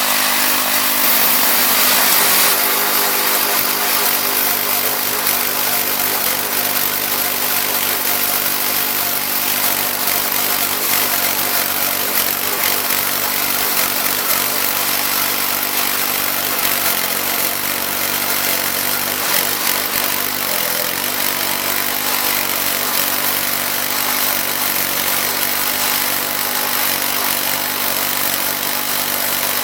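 Wood-Mizer LX25 portable band sawmill running steadily, its engine driving the band blade through a white oak log.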